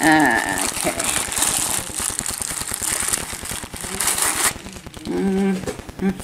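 Packaging crinkling and rustling as a cosmetic zip pouch is handled and unwrapped, stopping about four and a half seconds in.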